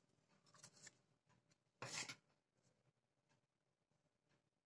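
Near silence: room tone, with a few faint light ticks and one brief soft rustle about two seconds in, from hands handling a paper cupcake liner and a spoon.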